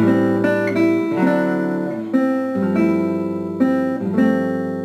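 Background music of plucked guitar notes and chords, each one ringing and fading before the next.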